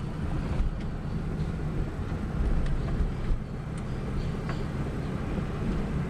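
Geo Metro driving on a rough road: steady low road and drivetrain rumble with a few faint, scattered knocks. The knock varies with wheel speed and is stronger under load, which the owner takes for an axle or brake problem.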